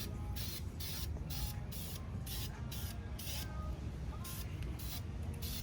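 Aerosol spray-paint can hissing in short bursts, roughly two a second, while brake calipers are painted, over a steady low rumble.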